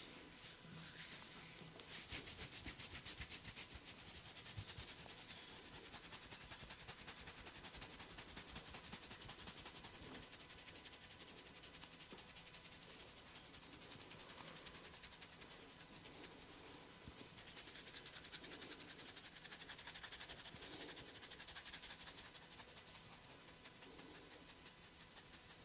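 Fingers scratching and rubbing through hair on the scalp in a head massage: a quiet, continuous run of fast, fine scratchy crackles, louder about two seconds in and again from about seventeen to twenty-two seconds in.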